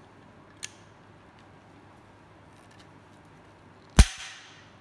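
Hand pop rivet gun setting a blind rivet: a faint click about half a second in, then one loud sharp crack near the end as the rivet stem snaps off and the rivet is set.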